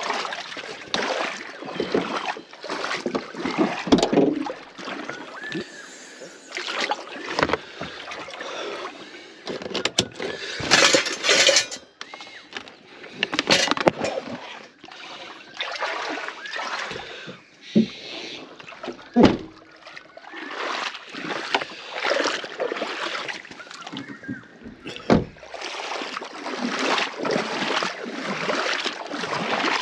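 Water splashing and sloshing in irregular bursts, with scattered knocks.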